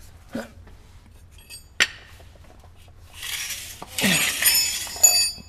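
Metal hand tools (wrenches and sockets) clinking and scraping on a concrete floor as they are grabbed and moved. There is a sharp tap about two seconds in, then a sliding scrape, then a run of ringing metallic clinks near the end.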